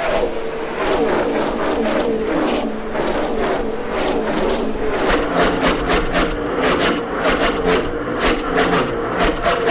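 NASCAR Cup Series Car of Tomorrow stock cars' pushrod V8 engines running at racing speed, with a rapid string of loud surges, about three a second in the second half.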